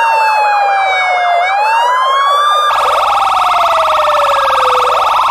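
Two siren tones sounding together: a slow wail that glides down and back up, over a fast, repeated falling yelp. About halfway through, the yelp speeds up into a rapid warble while the wail dips and rises again.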